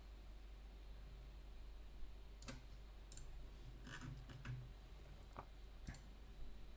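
A few faint, scattered clicks at a computer, about six over several seconds, over quiet room tone with a steady low hum.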